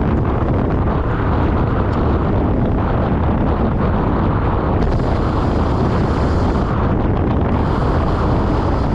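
Steady wind rushing over the microphone of a handlebar-mounted camera on a road bike riding at about 37 km/h.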